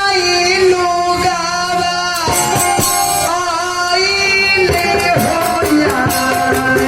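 Bhojpuri folk kanyadan song music: a gliding melody over tabla and drum accompaniment.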